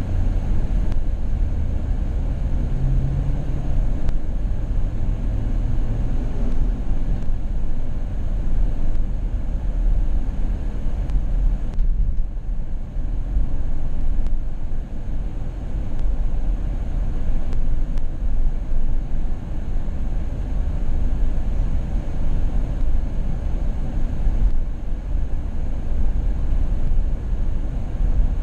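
A car on the move: steady low road and engine noise.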